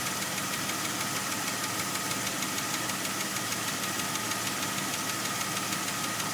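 2003 Jeep Grand Cherokee WJ's 4.0 straight-six idling steadily, with a light, fast ticking and a faint steady high whine. The tick comes and goes, and the owner takes it for lifter tick on the high-mileage engine.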